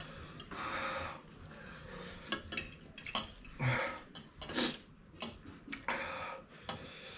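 A fork and spoon clinking and scraping against a ceramic plate of spicy noodles as they are twirled and scooped, with short eating noises in between.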